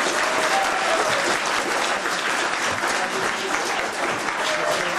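Audience applauding steadily, with a few voices faintly underneath.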